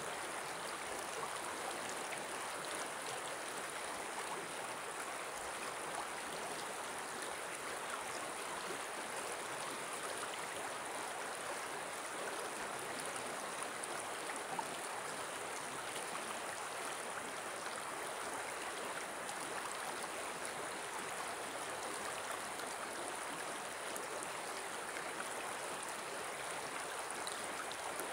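Shallow river flowing over a stony bed, a steady, unchanging sound of running water.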